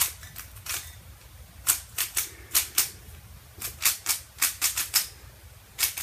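Plastic speed cube being turned by hand: a string of sharp, irregular clacks as its layers snap round, some in quick runs of two or three.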